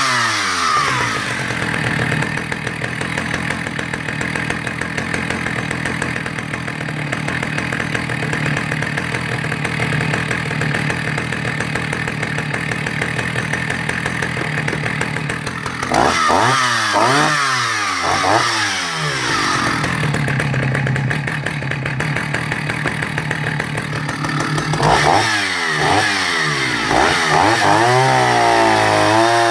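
Vintage Husqvarna L65 two-stroke chainsaw running at a steady idle, blipped up and down a few times about halfway through and again later, then revved up and held at high speed near the end.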